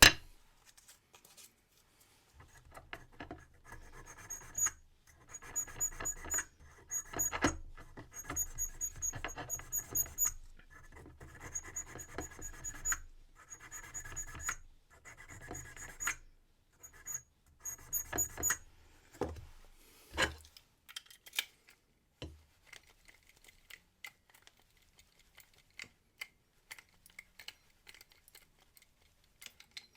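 Hand file rasping on a brass key blank in runs of quick strokes with short pauses between them, as the key is filed down during impressioning. After that come scattered light clicks and knocks.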